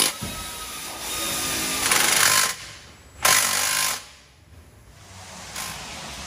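Cordless impact wrench hammering in short bursts while fastening exhaust hanger and clamp bolts: two loud bursts, about two and three seconds in, each under a second long.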